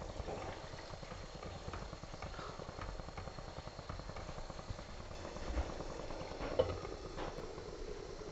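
Curry simmering in a metal kadai, bubbling steadily, while a spatula stirs and scrapes through it. A few knocks of utensil and lid against the pan, the sharpest about two-thirds of the way through, as a glass lid goes on.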